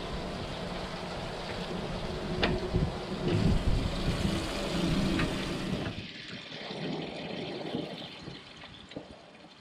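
Steady rushing, splashing water with a few sharp knocks on the boat. It drops away abruptly about six seconds in, leaving quieter scattered handling sounds.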